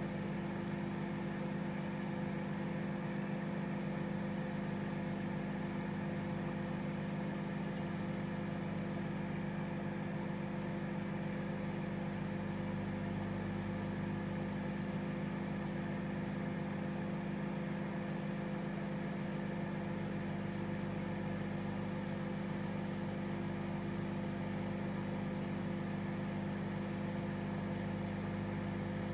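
Microwave oven running with a steady hum while it heats fish fillets.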